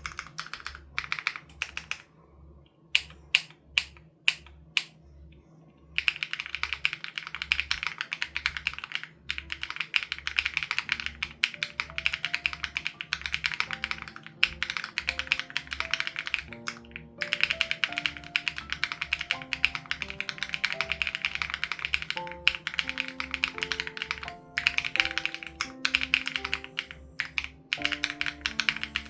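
Typing on an SPM AL87B mechanical keyboard with BSUN Raw switches and its sound-dampening foam removed: a few separate keystrokes at first, then steady rapid typing from about six seconds in. Background music plays alongside, with a regular low pulse and a melody that comes in about eleven seconds in.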